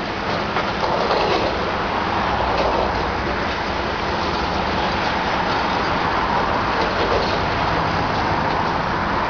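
Ultra-high-demolition excavator's diesel engine and hydraulics running steadily under load, with faint scattered knocks and clatter as its demolition attachment bites into the brick parapet.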